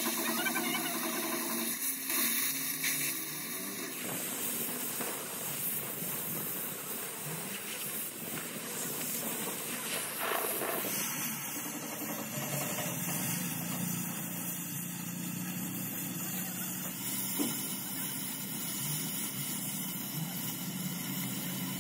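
Oxy-fuel cutting torch hissing as its flame cuts through the steel of an excavator bucket. From about halfway, a low steady hum runs underneath.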